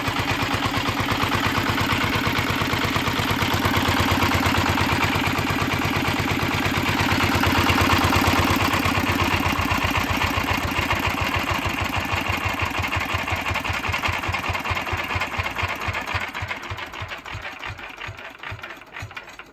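Petter PAZ1 single-cylinder stationary engine running with a steady, regular beat of firing strokes. Over the last few seconds the beats spread apart and fade as it slows down.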